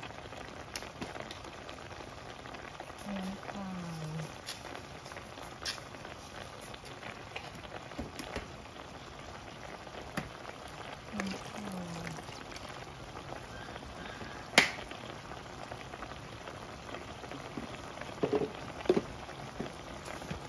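Egg, tomato and chilli sauce simmering in a nonstick pan: a steady bubbling hiss with scattered small pops. A single sharp click about two thirds of the way through.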